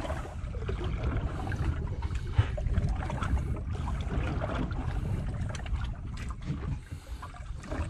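Water slapping and lapping against the hull of a small drifting boat, with wind rumbling on the microphone and a few faint scattered ticks.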